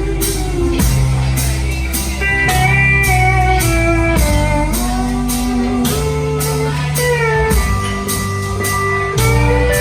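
Band playing an instrumental passage: a guitar lead with bending, sliding notes over low bass notes and a steady drum beat.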